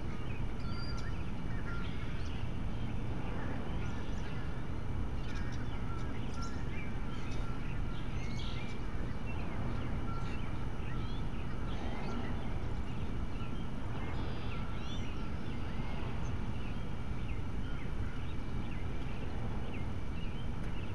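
Wild birds chirping and calling in many short notes over a steady low hum.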